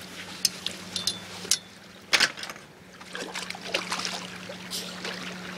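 Lake water splashing as a swimmer gets in from a boat ladder: a few sharp knocks, one louder splash about two seconds in, then small irregular splashes and lapping. A faint steady low hum runs underneath.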